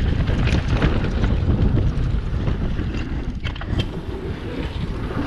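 Wind buffeting a GoPro Hero 7's microphone during a mountain-bike descent, a steady low rumble, with tyre noise on the trail and a few short rattles from the bike.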